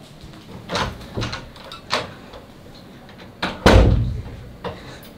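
Bangs and knocks on a wooden door: a few irregular knocks, then one much heavier bang about three and a half seconds in, and a lighter knock after it.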